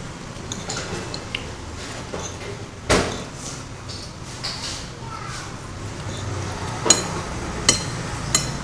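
Metal spoon and fork clinking and scraping on a ceramic plate of fried rice while eating: scattered sharp clinks and knocks, the strongest about three seconds in and a few more near the end.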